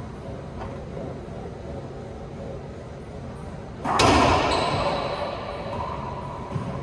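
A racquetball struck hard by a racquet, one sharp loud pop about four seconds in, ringing and echoing for a second or two around the walled court.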